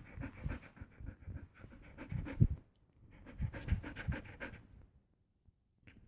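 A dog panting rapidly in bouts, breaking off for about a second near the end: fear panting, set off by distant firework bangs.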